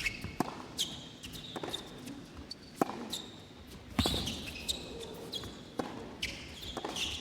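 Tennis rally: racket strikes on the ball about once a second, the hardest two in the middle, with short high squeaks between shots.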